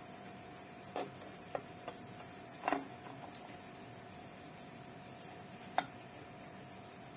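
Rocks being set in place by hand in a dry glass aquarium tank: about five light, sharp knocks and clicks of stone on stone or glass, the loudest a short rattle about a third of the way in. A faint steady hum runs underneath.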